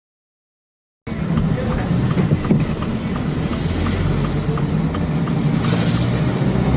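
About a second of dead silence, then the steady engine and road noise of a moving vehicle, heard from inside the cab.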